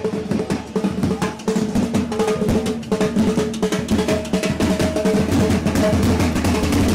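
A band of marching drums beaten with sticks, playing a fast, busy rhythm with drum rolls. A held note sounds underneath.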